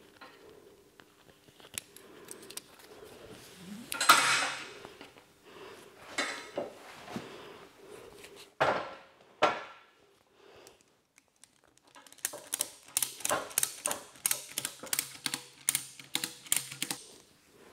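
A ratchet tie-down strap being tightened. The nylon webbing is pulled through the buckle in a few quick rasping pulls, then from about two-thirds of the way in the ratchet handle is cranked, giving a run of sharp clicks about three a second.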